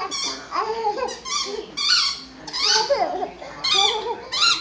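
A dog whining and yipping in play: a quick string of short, high-pitched cries whose pitch bends up and down.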